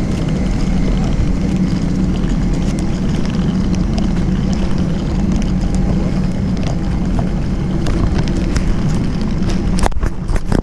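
Engine running steadily with a low, even hum, which cuts off about ten seconds in, followed by a few clicks and knocks.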